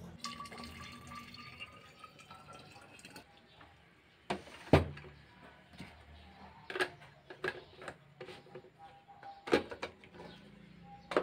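Water pouring into a container for about three seconds, its pitch rising as the container fills. A few sharp knocks follow, spaced a second or two apart.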